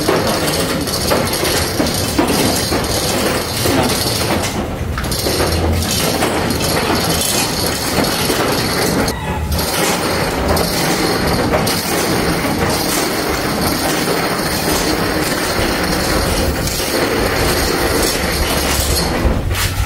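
Trailer-mounted Airman screw air compressor rolled by hand on its wheels: a continuous rumbling, rattling clatter with many small clicks over a low hum.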